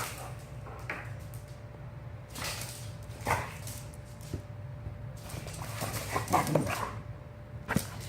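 Two dogs playing rough with each other: irregular bursts of dog vocalising and scuffling, busiest and loudest about six to seven seconds in, over a steady low hum.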